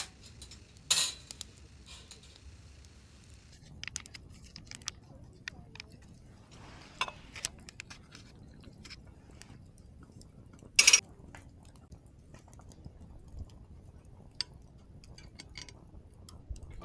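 Scattered light clicks and clinks of camp cookware and utensils, with two sharper knocks: one about a second in and one near eleven seconds.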